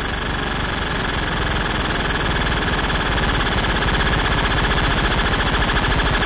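Electronic dance music build-up: a dense, gritty buzzing noise swelling steadily louder, with a rapid stuttering pulse that grows plainer toward the end.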